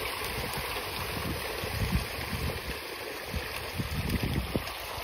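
Water splashing and churning as a dense shoal of farmed fish thrashes at the pond surface, with wind rumbling on the microphone.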